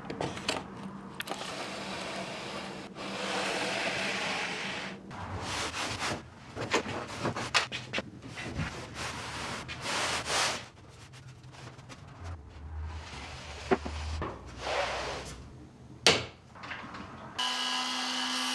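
Wood being worked by hand: stretches of scraping and rubbing, broken by sharp knocks and clicks, the loudest about seven and a half, thirteen and a half, and sixteen seconds in.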